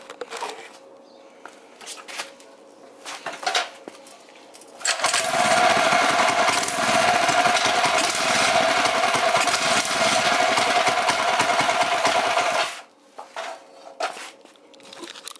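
Predator 212cc single-cylinder four-stroke engine on a mini bike. After a few short knocks it starts about five seconds in, runs loud and steady for about eight seconds, then stops suddenly. It starts and keeps running because its idle screw has been turned in.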